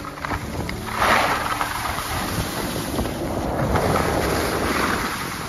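Skis scraping and hissing over packed snow during a downhill run, swelling with each turn and loudest about a second in, with wind buffeting the microphone.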